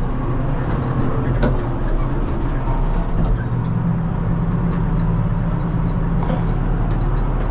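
Tractor engine running steadily under load, pulling a potato planter, with a few faint clicks over it.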